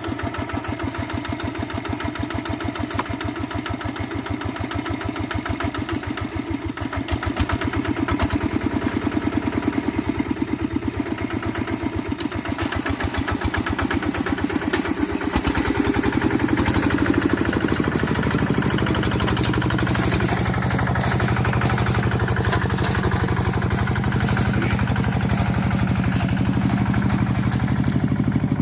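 Quick G1000 hand tractor's single-cylinder diesel engine running with a steady rapid beat, getting louder about a quarter of the way in and heavier about halfway through as it works through the scrub.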